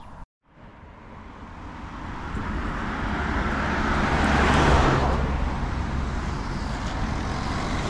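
Road traffic beside the footpath: a car approaches and passes close by about halfway through, its tyre and engine noise swelling and then easing, with steady traffic noise continuing after.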